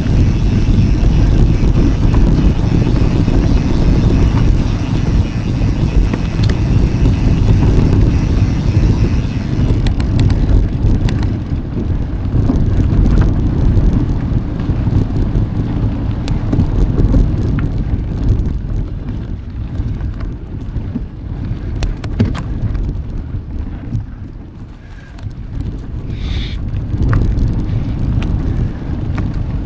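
Wind buffeting the microphone of a camera riding along on a moving mountain bike: a loud, steady low rumble, with scattered sharp ticks from the bike and trail from about a third of the way in, and a brief high squeak near the end.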